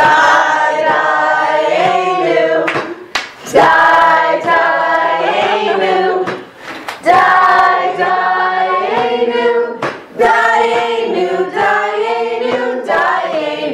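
A group of voices singing together in phrases a few seconds long, with a few sharp claps between the phrases.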